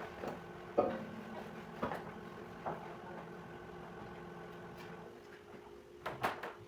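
A steady mechanical hum with a few sharp knocks of things being handled. The lower part of the hum stops about five seconds in, and a quick cluster of clicks follows near the end.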